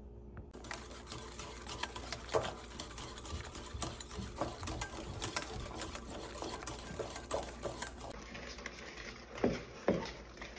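A wire whisk beating eggs and squash puree in a bowl, a rapid run of clicks and scrapes from the wires against the bowl. Near the end comes slower stirring of a thick brownie batter.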